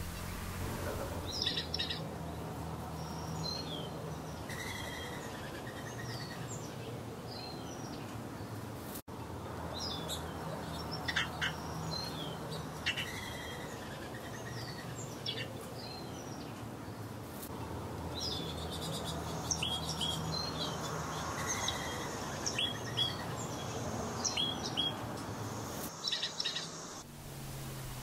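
Small wild songbirds chirping and calling, many short high notes and quick sweeping calls in irregular clusters, over a low steady hum.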